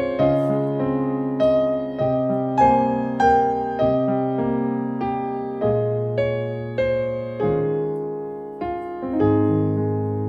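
Gentle solo piano background music: a slow melody of single notes, each ringing out and fading over held low chords.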